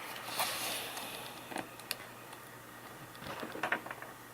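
Faint rustling and scattered small clicks of a trading card box being handled and opened, with a quick run of ticks near the end.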